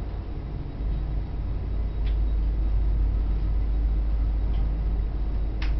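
Ferry engine running with a steady low rumble that grows louder about a second in. A short high squeak falls in pitch near the end.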